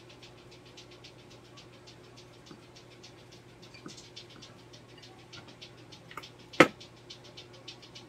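A single sharp knock about two-thirds of the way in, over a faint steady hum and a fast, even ticking of about six ticks a second, with a few lighter clicks.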